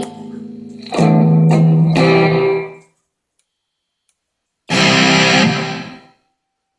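Guitar chords strummed through a Line 6 Spider V30 modelling amplifier on an acoustic setting. A few strums about a second in ring out, then after about two seconds of silence another chord is strummed and fades away.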